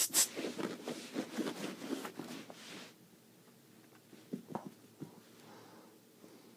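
A pet prairie dog scrabbling and scratching on carpet as it tussles with a person's fingers: a quick run of scratchy taps through the first three seconds, then a few soft taps about four to five seconds in.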